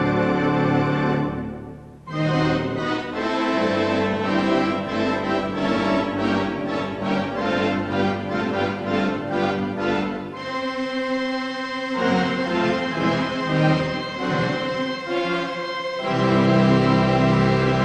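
A Wurlitzer theatre pipe organ playing a full, sustained passage. It breaks off briefly about two seconds in, moves through a quicker run of changing notes, and settles into held chords in the second half.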